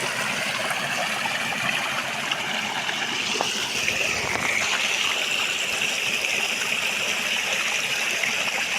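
Water running steadily along a small irrigation channel, a continuous rushing 'sarara' flow.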